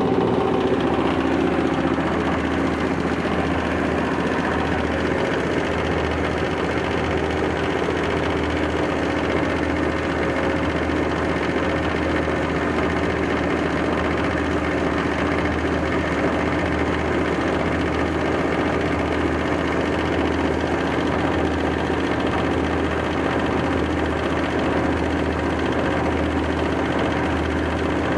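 Rice-husk bran grinding mill running steadily under load, grinding husks into fine bran, with a constant mechanical drone and low hum.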